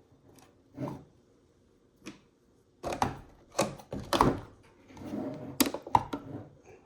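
Irregular hard clicks and knocks of a 3D-printed plastic cupholder being handled, a few sparse ones at first, then a denser run of knocks in the second half.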